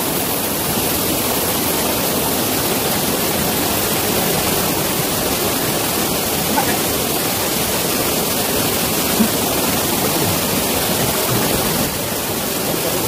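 Steady rushing of a small waterfall and fast-flowing stream water, an even unbroken noise.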